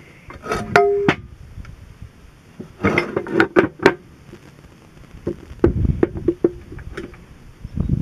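Metal clinks and knocks as a seal driver and hammer are picked up and set down on a steel workbench and an aluminium tractor timing cover, with one clink ringing briefly about a second in. Clusters of sharper knocks come around the middle and heavier thuds a little later.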